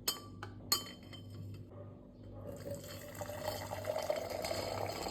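Two sharp glass clinks, then liquid poured into a glass, the pour's tone rising slowly as it goes on.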